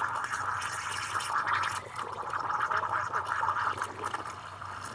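De'Longhi Stilosa's steam wand frothing milk in a pitcher: a steady hiss with gurgling, dipping briefly about two seconds in.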